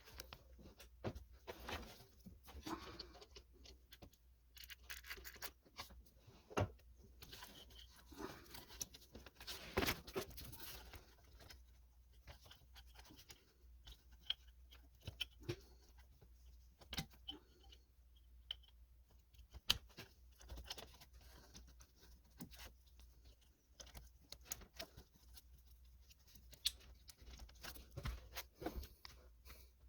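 Faint, scattered clicks, taps and rustling of hand work with tools and metal parts, over a low steady hum.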